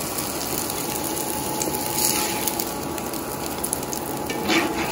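Browned onions sizzling in hot oil in a cast-iron pan, a steady sizzle, while a silicone spatula scoops and scrapes them out of the pan; a brief louder scrape about two seconds in and another near the end.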